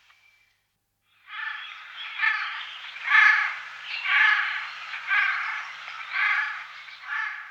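A bird giving a series of seven harsh, scratchy calls about a second apart, starting about a second in.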